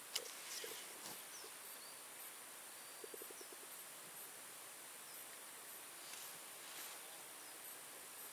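Quiet open-air ambience: a faint, steady, high-pitched insect trill that pulses about twice a second, with a sharp click just after the start and a short quick rattle about three seconds in.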